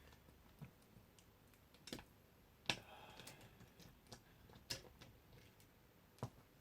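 Scattered faint clicks and taps, about six in all, the sharpest a little under three seconds in, from handling the car window regulator's cables and parts by hand.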